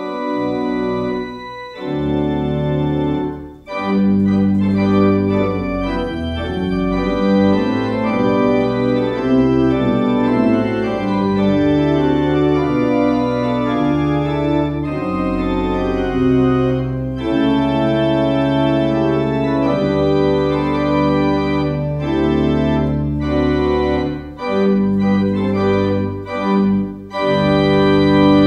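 Organ music: held chords that change every second or so, with short breaks about three and a half seconds in and again near the end.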